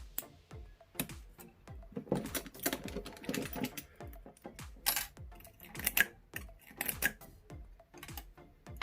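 Small metal clicks and scraping from lock picks and a tension tool working the pins of a padlock, with background music keeping a steady beat underneath.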